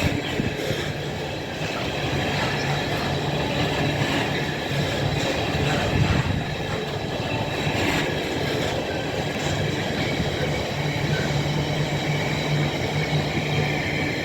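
Container freight train hauled by a Class 66 diesel running through, its wagon wheels rolling and clattering over the rail joints with high wheel squeal and a steady low hum underneath.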